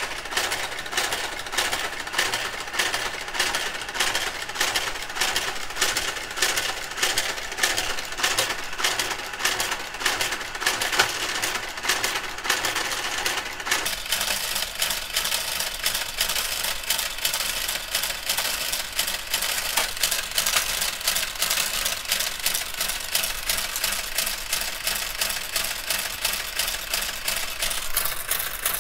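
Knitking Compuknit III (KG-93) motorised garter carriage travelling along the needle bed, knitting rows of 2x1 ribbing, with steady mechanical clicking at about three ticks a second. About halfway through the sound turns denser and hissier, with faster, finer ticking.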